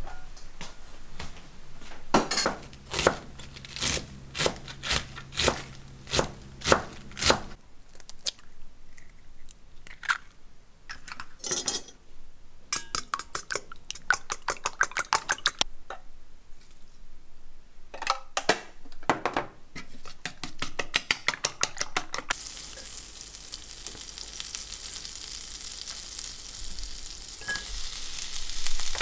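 Eggs beaten in a stainless steel bowl, the utensil clicking rapidly against the metal in quick runs. From about two-thirds of the way through, shredded cabbage sizzles steadily in a hot cast-iron skillet over a gas flame, louder near the end. Earlier there are sharp knocks at an even pace, over a low hum.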